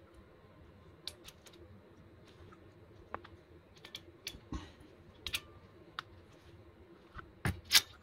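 Hand crimping tool with an insulated-terminal insert, clicking as its handles are squeezed to crimp a yellow insulated quick-disconnect terminal onto a wire. Scattered sharp clicks throughout, with the two loudest near the end.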